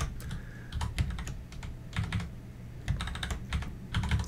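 Computer keyboard keys being pressed one at a time in an irregular run, single clicks and short clusters with brief pauses between them.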